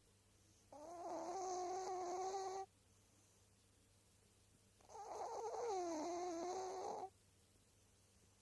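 Snoring: two long, pitched snores with a wavering tone and breathy hiss, about four seconds apart, with quiet breathing between them.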